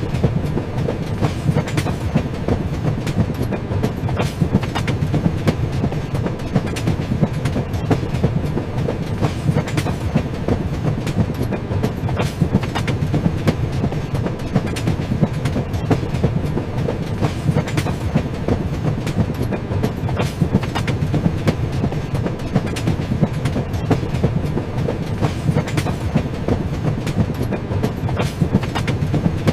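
Train running along the track: a steady low rumble with many short clicks and knocks of the wheels over the rails.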